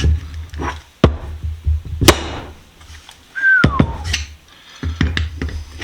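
A few sharp metal knocks and clinks from the vise's parts being handled and its slide fitted, over background music.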